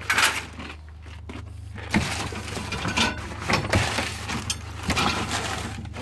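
Rummaging through junk in an old fridge: irregular clatters, knocks and rustles as metal odds and ends are handled and moved, over a steady low hum.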